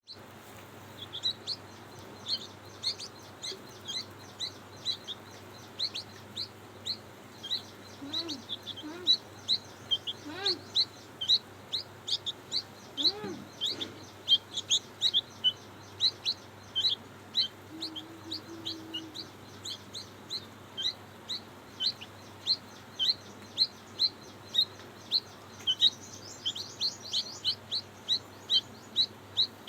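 Baby chicks cheeping: a steady string of short, high, sharp peeps, about two to three a second.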